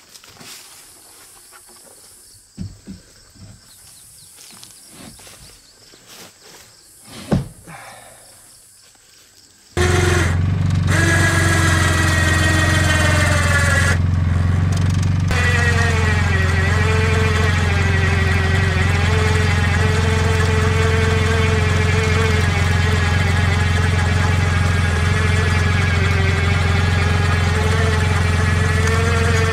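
A few light knocks as wooden 4x4 posts are handled. Then, about ten seconds in, a Polaris 800 ATV engine comes in suddenly and runs steadily, with a wavering whine over it.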